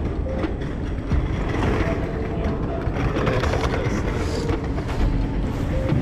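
Busy city street ambience: a steady low rumble of passing vehicles, with scattered brief tones and clicks on top.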